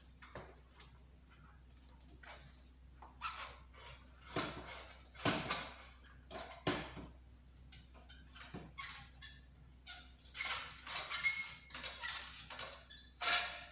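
A slip-on muffler being twisted and worked off the exhaust header pipe of a Husqvarna 701 Supermoto: irregular metal scrapes and clunks from the tight joint, coming thicker over the last few seconds before it slides free.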